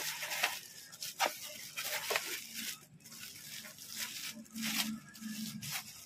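Plastic packaging wrap rustling and crinkling in irregular bursts as an electric coffee grinder is pulled out of its bag and foam packing.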